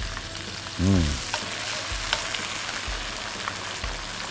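Oil sizzling steadily in a wok as sliced onion, garlic and ginger stir-fry with freshly added fermented soybean paste. A wooden spatula stirs the pan, making a few light scrapes and taps. A short vocal sound comes about a second in.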